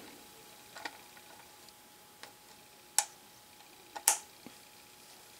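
Sharp little metal clicks as the spring-loaded steel locking latch on a pull gear speed reducer's hub is lifted and let snap back down. There are several clicks, with the two loudest about three and four seconds in.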